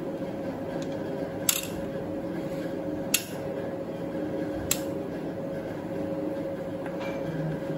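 Hand tools clinking against a bare engine's cylinder head: three sharp metallic clicks about a second and a half apart, over a steady hum.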